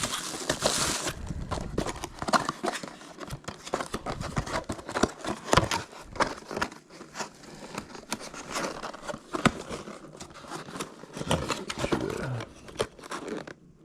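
Packaging being handled and shuffled during unpacking: rustling and crinkling with frequent small knocks and clicks.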